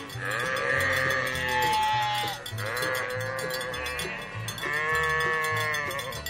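Three long, drawn-out livestock calls, one after another, with a steady low musical beat underneath.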